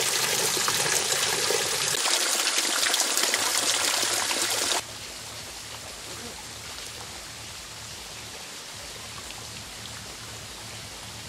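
Water trickling and splashing in thin streams down a wet, mossy rock face. About five seconds in it cuts off suddenly, leaving a much fainter steady hiss.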